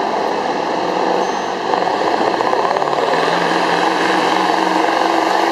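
Diesel semi-truck engine running hard at high revs under load as it pulls a weight sled. It gets louder about two seconds in.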